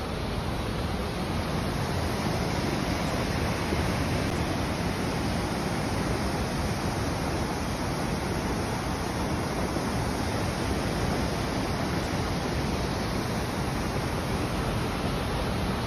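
Steady rushing noise, even and unbroken, with no distinct events in it.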